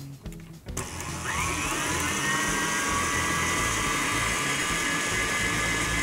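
Electric stand mixer with a wire whisk switched on about a second in: its motor whines up in pitch as it comes up to speed, then runs steadily on high, whipping a cream filling until it is fluffy.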